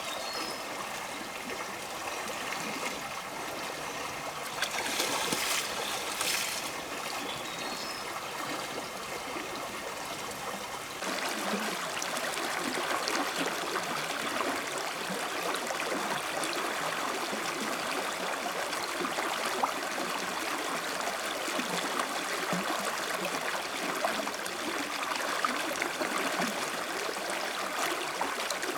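Running water of a small stream, a steady trickling, which turns louder and brighter about eleven seconds in.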